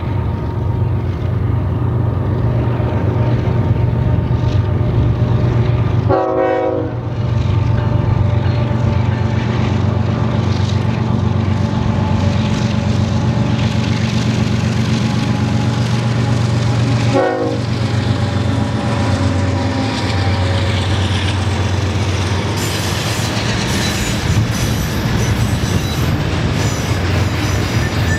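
Diesel engines of BNSF GE ES44C4 locomotives running under load as the train passes, giving way to the steady rumble and wheel clatter of double-stack container cars rolling by. The cars grow noisier and more rattling near the end.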